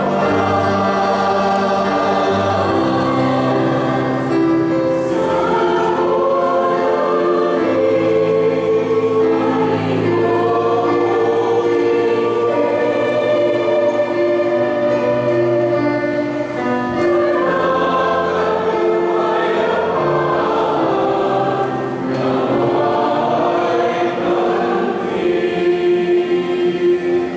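Church choir singing a hymn in Tagalog over long held low accompanying notes.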